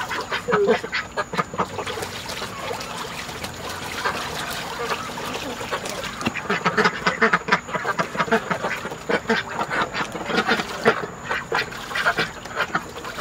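A flock of domestic ducks quacking: many short, overlapping quacks, thickest in bursts near the middle and toward the end.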